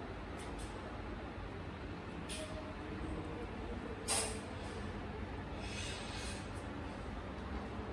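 Steady low background rumble with a few faint clicks and one short hiss about four seconds in.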